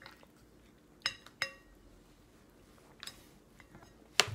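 Plastic baby spoon clinking against a metal bowl: two sharp clinks with a brief ringing about a second in, lighter taps later, then a louder knock near the end.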